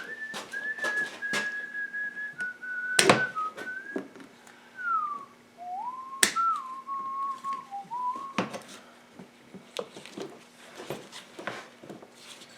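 A man whistling a wandering tune to himself for about eight seconds, over scattered clicks and knocks of tools and parts being handled; two sharp knocks stand out, about three and six seconds in.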